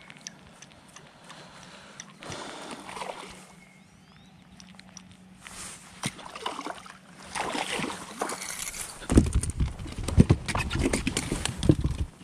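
Water splashing and sloshing as a bass strikes a lure beside the boat and is fought in, in irregular bursts, followed by loud knocks and thumps against the boat in the last three seconds.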